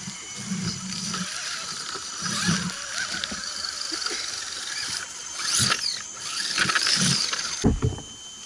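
Electric motors and geared drivetrains of scale RC crawler trucks whining in short bursts, rising and falling with the throttle, as they crawl over roots, over a busy background of forest birds and insects.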